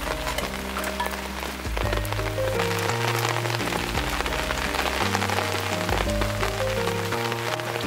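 Steady rain falling, an even hiss dotted with many small drop ticks, over background music of held notes and a shifting bass line.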